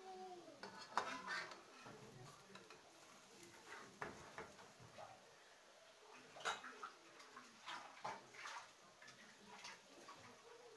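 Quiet, irregular clicks and crackles from a pancake frying in an aluminium frying pan, with a sharper click about a second in as a metal spatula touches the pan.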